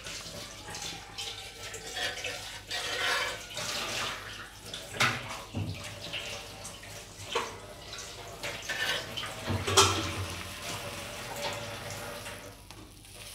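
Egg pitha sizzling as it fries in a pan. A metal spatula scrapes and clicks against the pan, several times, as the pitha is lifted and folded over.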